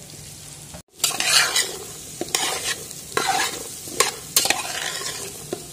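Chopped vegetables being stirred and sautéed in hot oil in a large steel pot: a metal spatula scraping and clattering against the pot over a sizzle. Irregular strokes, with a brief total break in the sound about a second in.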